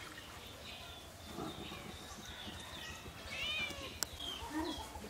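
Domestic cats meowing in short calls, the clearest about three and a half seconds in. There is a single sharp click about four seconds in.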